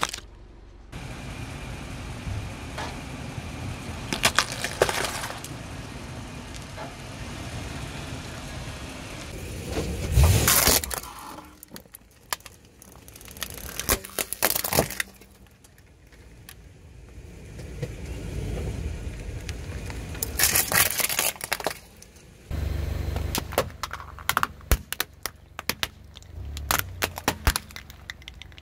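A car tyre rolling slowly over plastic toys and other objects and crushing them, with a series of sharp cracks and crunches over the low rumble of the tyre and engine. The loudest crack comes about ten seconds in, and near the end there is a quick run of small cracks and pops.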